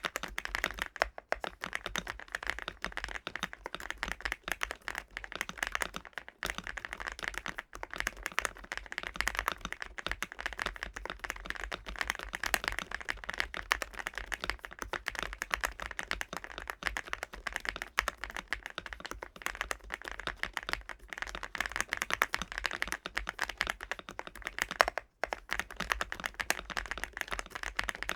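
MCHOSE UT98 mechanical keyboard being typed on continuously: a dense, fast stream of key-press clicks.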